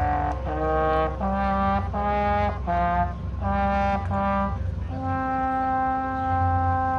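Marching band brass section playing a run of short chords, each held about half a second, then settling on one long sustained chord about five seconds in.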